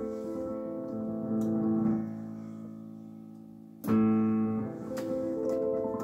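Piano played by hand: held low chords ringing out and slowly fading, then a louder chord struck about four seconds in, followed by lighter notes.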